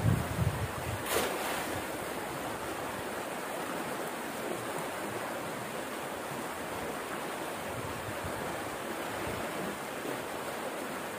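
Muddy stream rushing and churning over a small rapid, a steady rush of water, with one short sharper hiss about a second in.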